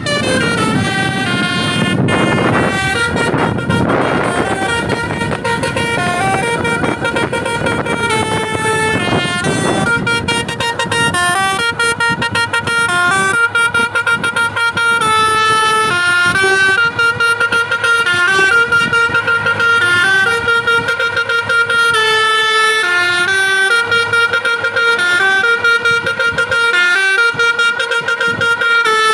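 Bus telolet basuri horn, a set of roof-mounted trumpets, playing a continuous melody of held notes that step up and down, a new note about every half second. A rough rushing noise sits under the horn for roughly the first ten seconds.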